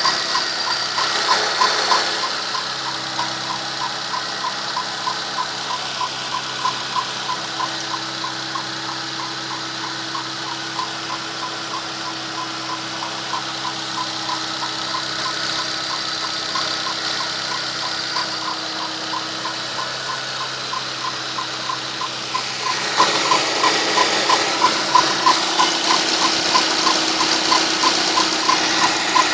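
Volkswagen Gol G4 1.0 four-cylinder engine idling with an even, rhythmic tapping knock ('toc-toc') over its steady hum, getting louder about three-quarters of the way through. This is the knock the owner hears only for the first few minutes after a cold morning start, which he links to the hydraulic tappets.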